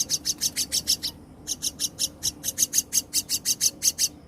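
Common myna nestlings calling: rapid, harsh, rasping high calls, about eight a second, in runs with a brief pause about a second in.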